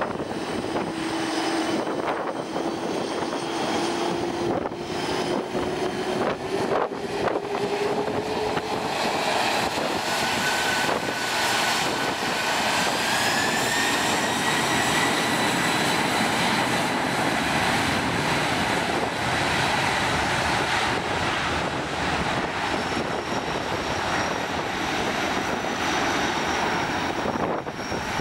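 Boeing 747-400's four jet engines running, then spooling up about halfway through: a whine rises in pitch and settles into a steady high whine over a broad rumble as the airliner goes to takeoff thrust.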